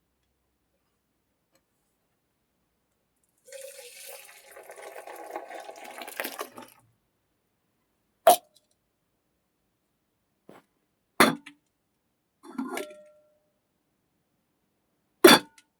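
Liquid poured into a vessel for about three seconds, starting a few seconds in: a foley take for milk being poured. It is followed by a few short, sharp knocks.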